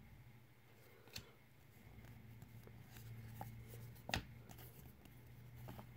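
Faint handling of a stack of 2019 Donruss baseball cards: soft sliding and rustling as a card is moved through the stack, with a small click about a second in and a sharper one just after four seconds.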